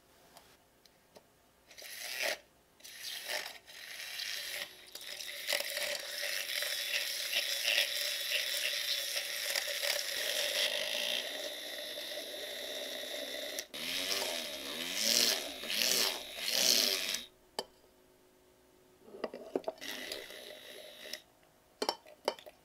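Handheld battery milk frother whirring in a glass jug, whipping a coffee mixture into a light foam for dalgona coffee. It starts with a few short bursts, runs steadily for about twelve seconds, stops, then runs again briefly near the end.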